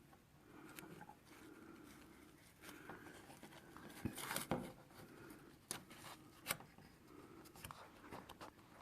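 Faint, scattered light clicks and taps from small wooden miniature door-frame pieces and masking tape being handled, about nine in all, the sharpest about halfway through.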